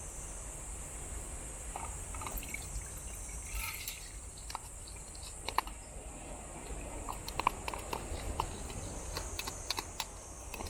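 Scattered light clicks and taps, coming more often in the second half, over a steady background hiss.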